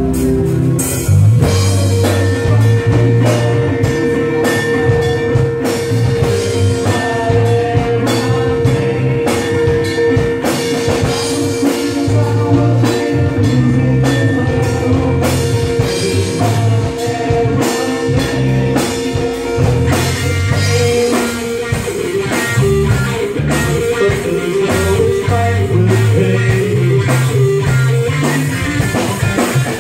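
Live rock band playing an instrumental passage with no singing: electric guitar, electric bass and drum kit. A long held note rings over the first two-thirds, then gives way to shorter, busier notes.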